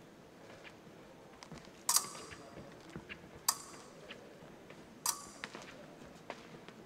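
Épée blades clashing: three sharp metallic clinks with a brief ring, about a second and a half apart, among lighter clicks and taps.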